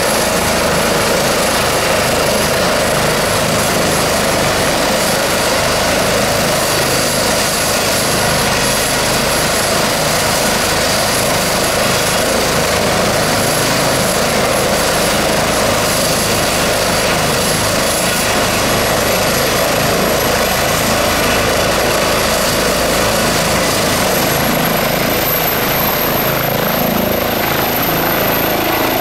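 Airbus H135 helicopter's twin Pratt & Whitney PW206B3 turboshaft engines and main rotor running on the ground: a loud, steady rotor rush with a thin, high turbine whine over it. About 25 seconds in the whine rises in pitch as power comes up and the helicopter lifts off.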